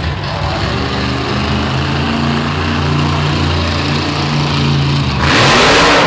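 Monster truck's supercharged V8 engine running under throttle as the truck drives across the dirt. Near the end a sudden loud rush of noise comes in as it rears up onto the crushed car.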